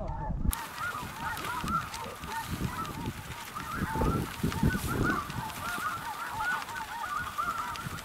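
A large flock of snow geese calling: many short, overlapping honks, one after another without a break.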